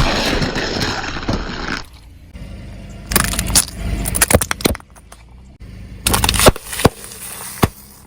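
Objects being crushed under a car tyre: a dense crunching at first, then several separate bursts of cracking and snapping with short quieter gaps between them.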